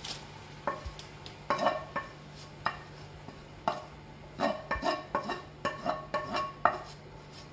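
Wooden spoon scraping and knocking against a frying pan held over a pot, clearing out the last of the sauce. Irregular short knocks, each with a brief ringing tone, sparse at first and coming in quick succession in the second half.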